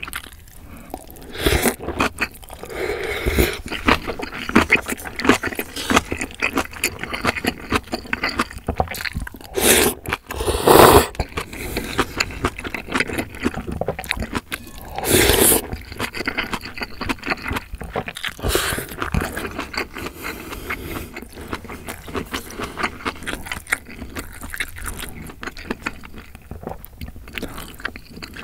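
Close-miked eating of ramyeon with sliced sausage and kimchi: steady wet chewing and crunching, with louder slurps of noodles and broth about ten, eleven and fifteen seconds in.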